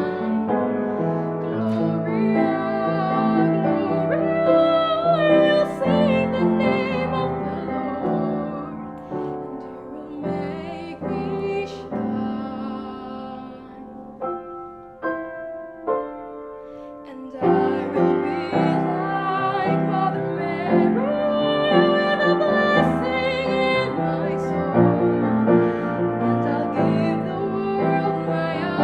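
Music led by piano, with a held, wavering melody line over it; it thins to a few soft, sparse chords about halfway through, then builds back up.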